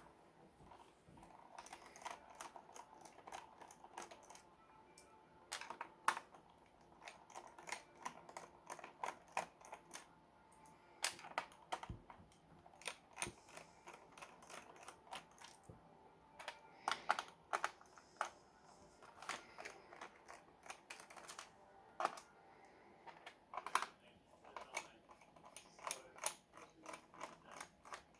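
Irregular small clicks and taps, several a second at times, from a laptop's plastic case, screws and a screwdriver being handled as the laptop is taken apart.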